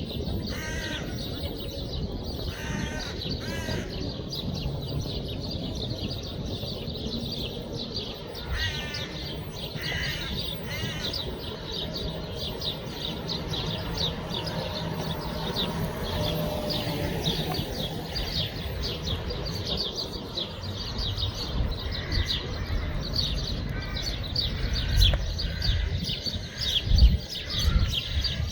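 Birdsong: many small birds chirping rapidly and continuously, with a few harsher, louder calls like cawing. Several low thumps near the end.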